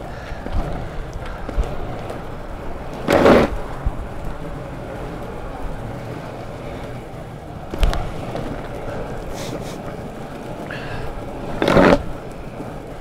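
Longboard wheels rolling steadily over a rough path surface, a continuous grinding rumble. Two short, louder scraping rushes stand out, about three seconds in and again near the end.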